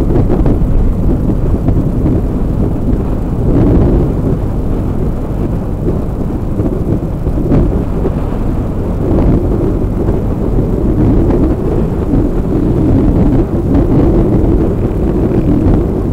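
Loud, steady wind buffeting on the microphone of a camera riding on a moving motorcycle at road speed, with the motorcycle's engine running underneath.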